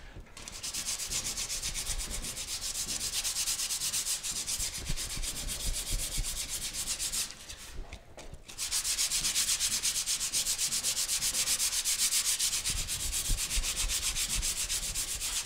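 Hand sanding of cured primer over body filler on a steel trunk lid with 80-grit sandpaper held flat under the palm. It is a rapid, even back-and-forth scratching hiss, with a brief pause about seven and a half seconds in. This is the block-down stage, levelling the primer to cut out pinholes before paint.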